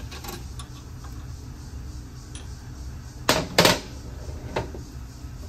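Metal parts of a spray-foam rig's high-pressure pump being handled by hand: two sharp clinks in quick succession about three seconds in and a fainter one a second later, over a steady low hum.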